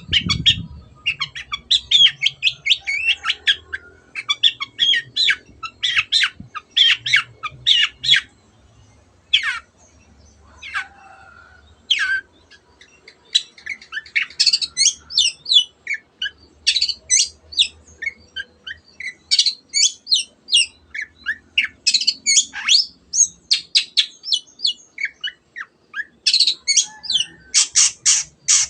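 Long-tailed shrike (cendet) singing in rapid runs of short, high notes, with a brief lull about ten seconds in.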